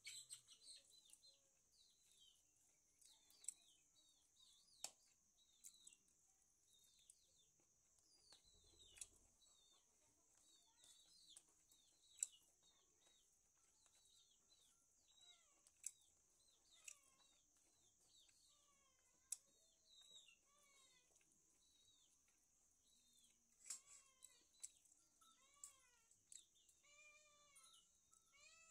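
Faint, repeated short meows of a cat, coming closer together and clearer near the end, over a steady faint high hiss and a few sharp clicks.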